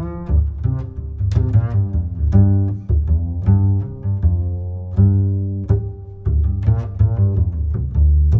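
Background music: a low, bass-heavy pitched line with a note struck about every half second to second.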